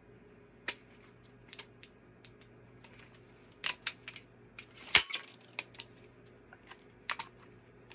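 Shells being speed-loaded into a Mossberg 500 pump shotgun: a string of sharp, irregular clicks and clacks, the loudest about five seconds in.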